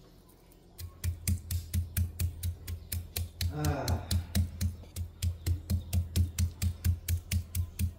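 Large kitchen knife chopping raw shrimp on a wooden chopping board: a fast, even run of chops with a low thud on each, about five a second, starting about a second in.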